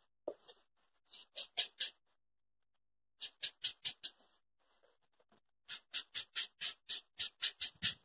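Small sponge rubbing acrylic paint onto an EVA foam petal in quick back-and-forth strokes, about four or five a second. The strokes come in three runs, the last and longest starting about six seconds in.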